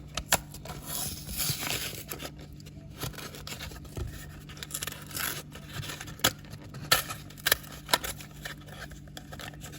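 Plastic blister and cardboard of a diecast toy-car package being opened by hand: crinkling, tearing and scraping, with scattered sharp clicks that are loudest a few seconds past the middle.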